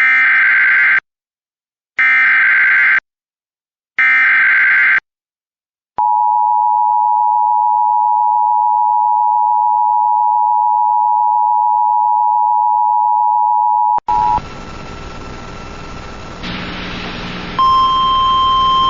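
Emergency Alert System sender: three one-second screeching SAME data header bursts two seconds apart, then the steady two-tone attention signal held for about eight seconds. The attention signal breaks off suddenly into static, a sign of the sender going wrong, and a single steady tone comes in near the end.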